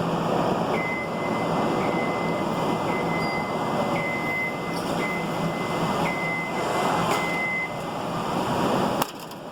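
Motion alarm of a lift being lowered, giving a high electronic beep about once a second, seven times, over a steady mechanical hiss. The beeping stops and a sharp click follows near the end.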